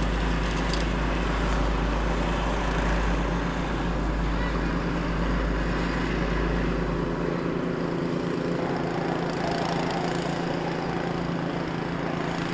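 Snowblower engine running at a steady pitch, with a pickup plow truck driving past; the truck's deep rumble drops away about seven seconds in.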